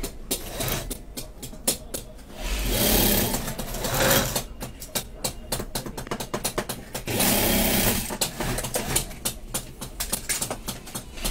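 Sewing machine stitching surgical masks, a fast steady ticking of the needle. Two louder stretches of rushing noise come about two and a half seconds in and again about seven seconds in.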